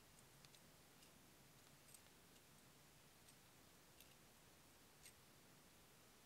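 Near silence with about five faint, short clicks spaced irregularly, from the copper stem wires of a bunch of seed-beaded leaves being twisted together by hand.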